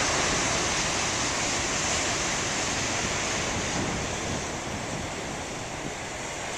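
Large ocean waves breaking on a beach: a steady rush of surf that eases a little in the second half.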